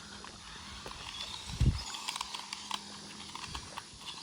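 RC cars on a dirt road: many light, scattered ticks and clicks of grit and small stones, over a faint steady hum. One low thump about one and a half seconds in.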